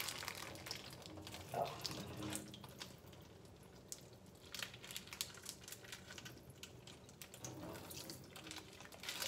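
Water trickling and splashing into a stainless steel kitchen sink, with small clicks from handling.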